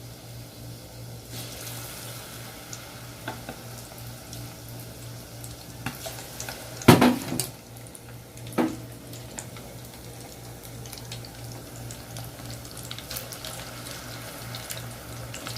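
Flour-coated chicken wings frying in hot oil: a steady sizzle that picks up about a second in, over a low hum. About halfway through come two sharp knocks a second or two apart, the first the loudest sound here.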